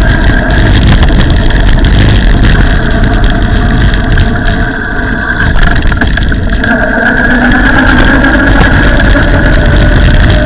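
Wind rushing and buffeting over the microphone of a camera on a moving bicycle at about 29 km/h, easing briefly about halfway through as the bike corners. A steady high whine runs beneath it and rises in pitch in the second half.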